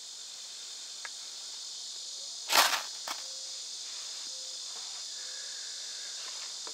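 Steady high-pitched chorus of insects, with one short, sharp rasp about two and a half seconds in and a faint click just after.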